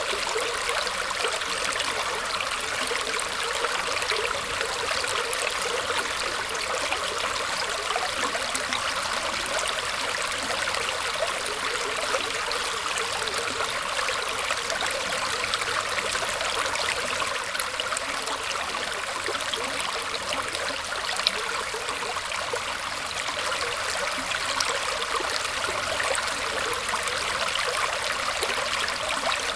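A small stream trickling and flowing steadily through tree roots, a constant rush of water with small splashes and drips on top.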